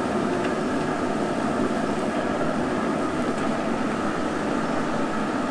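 Recteq RT-B380 Bullseye pellet grill running hot: a steady rushing noise from its combustion fan and fire, with a faint hum.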